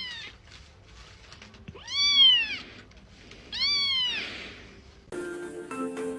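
Domestic cat meowing three times, each call rising and then falling in pitch, the middle one loudest. Music with keyboard-like notes comes in near the end.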